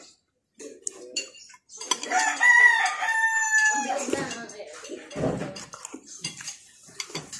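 A rooster crows once, a single call of about two seconds starting about two seconds in and ending on a long held note. Around it are the small clinks of a metal spoon against a ceramic bowl.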